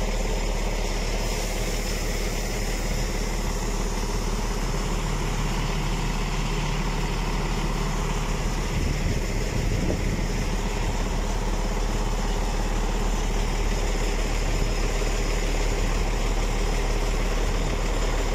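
Mercedes-Benz truck's diesel engine running steadily at slightly raised revs to drive the tipper's hydraulic pump, while the multi-stage telescopic cylinder extends and tips the dump body to unload gravel.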